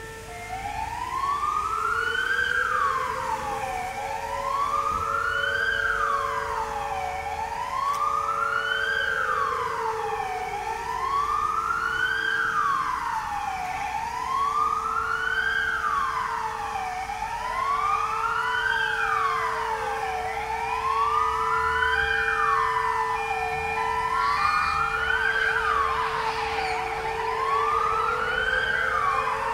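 Alarm siren wailing, its pitch rising and falling about once every two seconds, with a second, lower siren tone that winds up at the start, winds down about ten seconds in and winds up again near the end. It is the commemorative siren sounded on the Warsaw Uprising anniversary.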